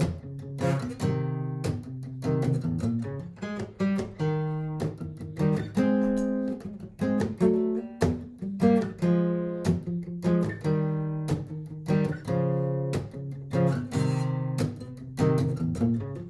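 Martin GPCPA4 acoustic guitar strumming chords in a steady rhythm, each strum ringing on until the next.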